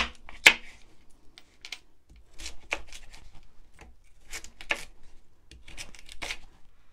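Kitchen knife cutting raw sweet potato into big chunks: a run of short, irregular cuts and knocks, the loudest in the first half-second.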